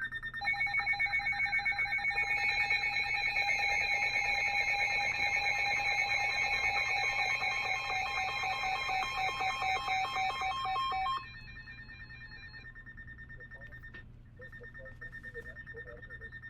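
Weather alert radios sounding their alarm, several pulsing beep tones at different pitches overlapping. The beeping stops about 11 seconds in, leaving a fainter steady high tone.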